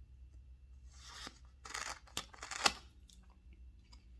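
A sample package being opened by hand: a few short bursts of tearing and rasping with sharp clicks, from about a second in, the loudest about two and a half seconds in.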